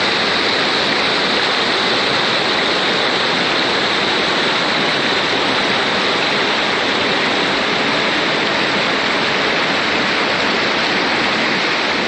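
Umngot River whitewater rushing over rocks in shallow rapids: a loud, steady rush of water.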